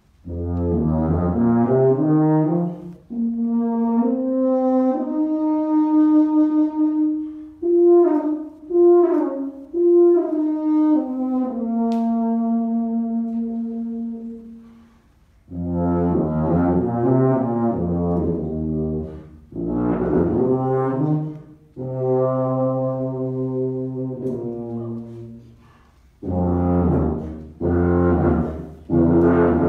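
Solo Miraphone tuba improvising: held notes and runs in phrases separated by brief breaths, with a rising run about a second in, a long stretch of higher notes, then deep low notes in the second half.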